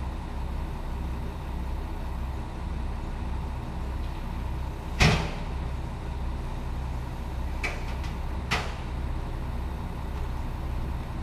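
A steady low hum throughout, with one sharp knock about five seconds in and two lighter knocks a few seconds later.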